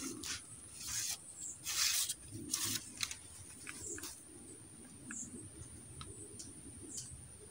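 Swamp ambience: a steady high-pitched insect drone with a few short high chirps. Brief rustling noises come in the first three seconds, the loudest about two seconds in.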